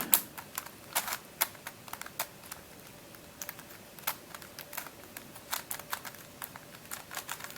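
Plastic layers of a Witeden Mixup shape-shifting twisty puzzle clicking and clacking as they are turned by hand, in irregular quick clicks.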